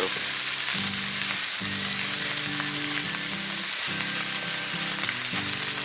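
Beef steak sizzling steadily in a hot cast-iron skillet over a charcoal fire, with low held tones shifting every second or so underneath.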